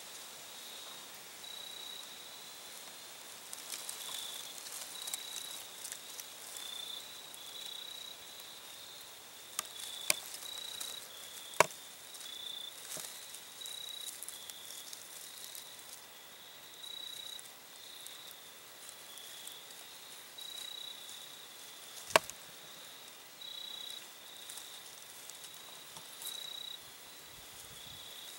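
Insects chirping steadily at a high pitch in a grassy field, the song stepping back and forth between two slightly different pitches. A few sharp clicks break in here and there, two of them loud.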